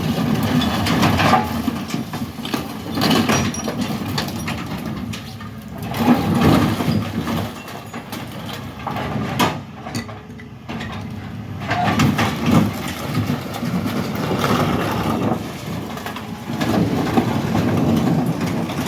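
Heavy diesel machinery tearing a Dodge Dakota pickup apart, separating the body from the frame: the engine works under load while sheet metal crunches and creaks in surges, with a few sharp metallic knocks about halfway through.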